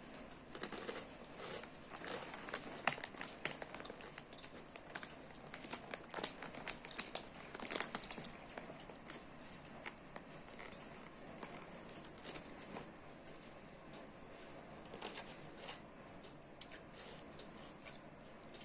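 Irregular crinkling and rustling with many sharp little clicks, busiest in the first half and again briefly near the end; no meows or hisses stand out.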